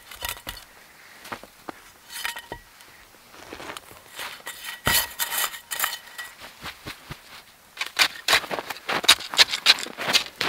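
Snow being scooped and packed with a metal pot, with scattered light clinks and scrapes of the pot. From about 8 s in, a dense run of louder snow crunching.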